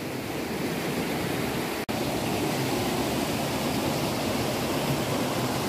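Steady rush of water from a fast river's rapids, an even wash of noise with no pitch or rhythm.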